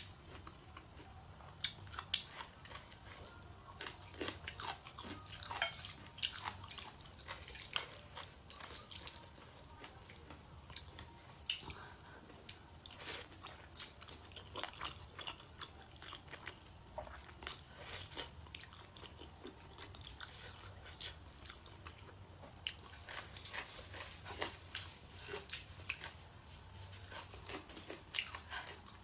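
Close-up sound of a person chewing and biting a mouthful of stir-fried rice noodles, with many small irregular mouth clicks.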